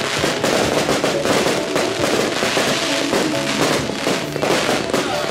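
Fireworks finale: aerial shells bursting in quick succession with dense crackling, over music with sustained tones.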